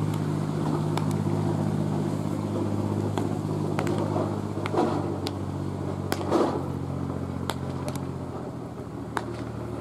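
Sharp pops of baseballs landing in leather gloves during catch play, about ten irregular smacks, over a steady low mechanical hum.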